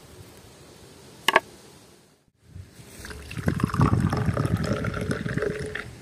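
Water poured into a container, with rapid irregular glugging strokes for about three seconds in the second half. Earlier comes a single brief sharp clink.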